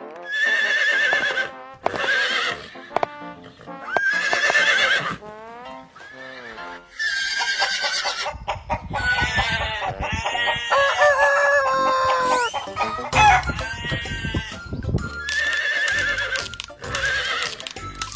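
Farm animal calls, several separate calls a few seconds apart, over background music.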